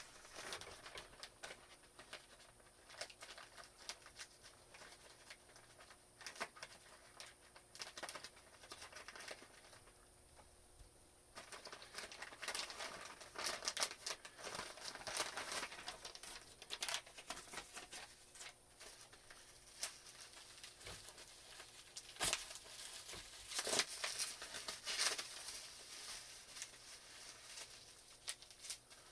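Mail packaging being handled and opened by hand: irregular rustling, crinkling and tearing with scattered taps and clicks. It goes quieter for a moment around ten seconds in, then the handling picks up again.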